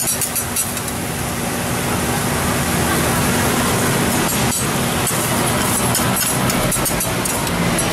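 Metal spatulas scraping and clinking on a steel teppanyaki griddle as bean sprouts are tossed, over steady sizzling.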